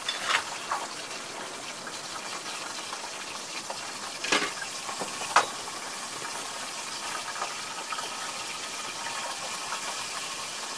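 Steady rushing hiss with a few sharp clinks of cookware and utensils, the loudest about four and five seconds in.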